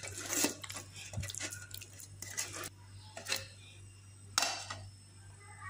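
A few light clinks and knocks of a metal strainer and bowl being handled, scattered at irregular intervals, over a low steady hum.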